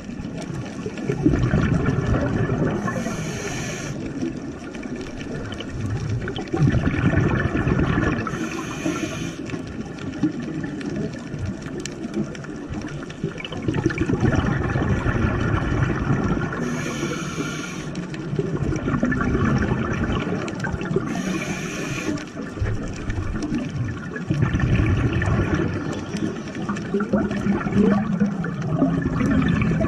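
Scuba diver breathing through a regulator underwater: four short hissing inhales, a few seconds apart and unevenly spaced, with rumbling, bubbly exhales in between.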